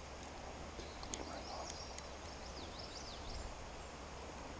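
A songbird singing a short phrase of quick up-and-down whistles, lasting about two seconds, over a steady background hiss. A couple of sharp clicks come just before it.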